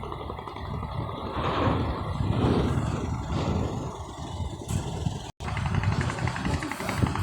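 Low, steady engine rumble with noisy swells, broken by a sudden cut about five seconds in.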